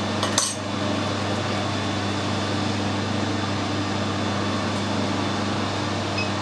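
Steady mechanical hum of a running machine motor, with one short sharp click about half a second in.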